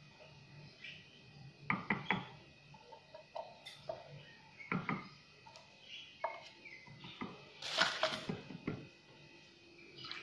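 Light, scattered knocks and taps of an opened tin can and a mixing bowl as the can is tipped and held over the bowl to pour, with one louder scraping rustle about eight seconds in.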